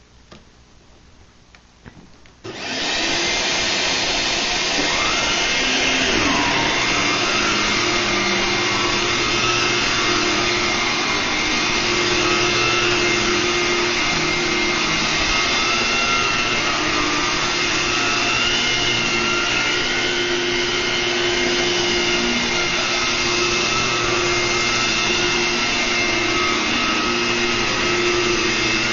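Electrolux upright vacuum cleaner from the late 1980s or early 1990s switched on about two and a half seconds in, then running steadily with a motor whine whose pitch wavers slightly.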